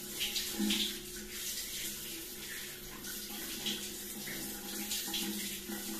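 Overhead shower running, its spray splashing onto a person's head and shoulders, with uneven spurts of louder splashing.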